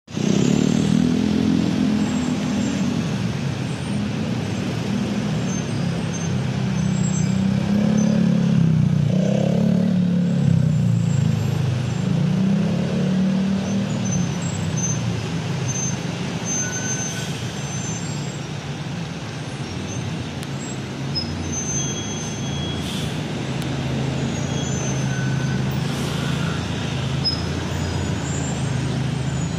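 Road traffic in slow, dense stop-and-go: cars and taxis idling and pulling away, their engines wavering in pitch. A city bus draws up alongside. A few short high squeaks come in the second half.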